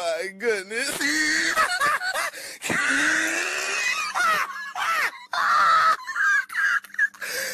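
A person's voice wailing and crying out in short, choppy bursts that slide up and down in pitch, with no clear words.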